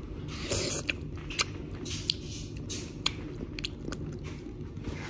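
Crunching bites and chewing of blue Takis rolled tortilla chips: a string of sharp, crisp crunches scattered through the chewing.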